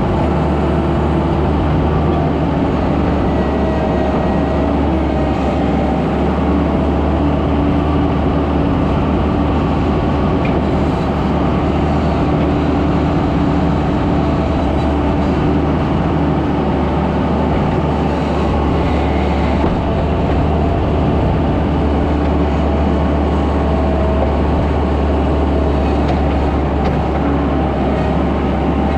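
Skid steer's diesel engine running steadily under load, a loud, even drone with no change in pitch.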